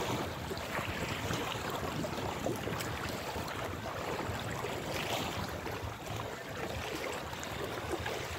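Steady hiss of outdoor ambient noise, wind-like, with a few faint scattered clicks.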